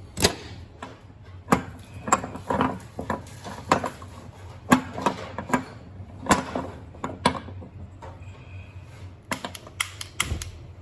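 Irregular metallic clicks and knocks of a T-wrench and gas-stove burner parts being handled while the burner nozzle is loosened and refitted, with a quieter stretch a little after halfway.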